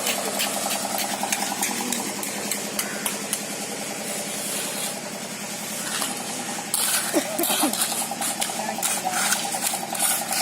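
Engine running steadily with a fast, even pulse, over scattered metal clinks and knocks of concrete work.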